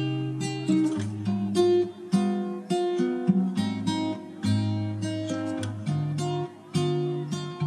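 Background music on acoustic guitar: a steady run of picked notes and strums.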